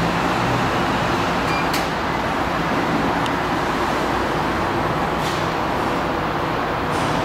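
Elevator car travelling in its shaft: a steady rumbling hum with a low drone from the machinery, and a few light clicks along the way.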